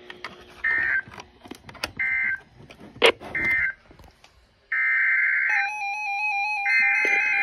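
NOAA Weather Radio SAME data tones: three short raspy warbling bursts about 1.3 s apart, the end-of-message code closing the warning. Near 5 s longer data bursts begin, the header of the next alert, and a steady alert beep from a weather radio receiver starts up alongside them. Static crackle clicks sound between the bursts.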